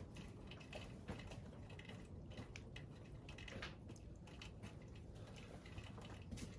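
Faint scattered clicks and taps of small parts being handled and set down, over a low steady hum.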